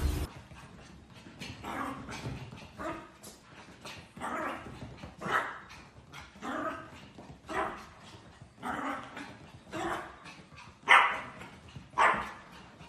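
A small dog barking over and over, short barks about once a second, the last few the loudest.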